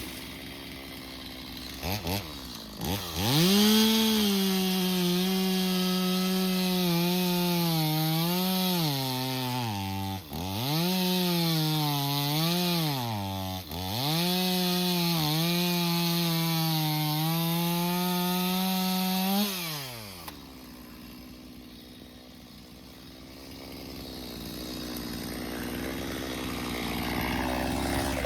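Stihl MS 250 two-stroke chainsaw blipped a few times, then held at full throttle cutting into wood. Its high engine note sags and picks up again twice in the middle. About two-thirds through it drops back to a low idle.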